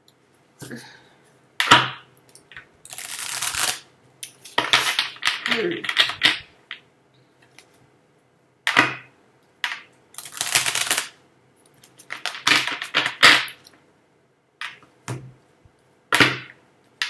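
Tarot cards being shuffled by hand: a series of short rustling, flicking bursts with pauses between them.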